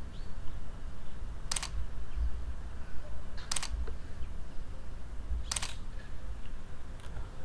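Camera shutter clicking three times at even intervals about two seconds apart, each a short, sharp double click.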